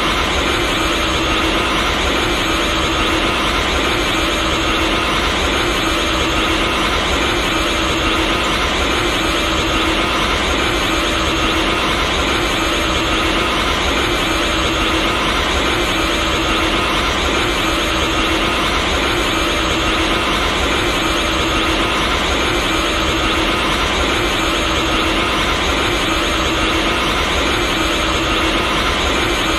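Ultra Instinct aura sound effect: a steady, dense rushing drone with a few held tones inside it, never changing in level.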